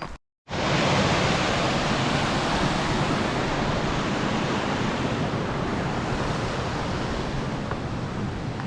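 A steady, loud rushing noise that starts abruptly after a short break about half a second in and eases slightly toward the end.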